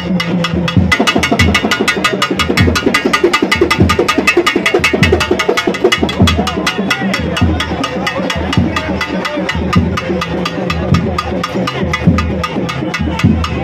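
Traditional festival drums played in a fast, steady beat of sharp strokes, about six a second, with crowd voices underneath.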